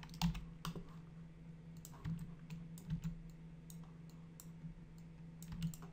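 Scattered clicks of a computer mouse and keyboard, over a steady low hum.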